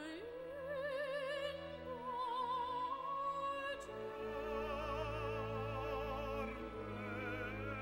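Background operatic classical music: a melody held in long notes with a wide vibrato over a low, sustained accompaniment.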